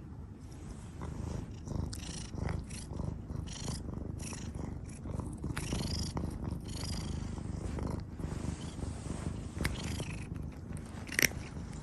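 Domestic cat purring, a low steady rumble, with a few light clicks and rustles over it.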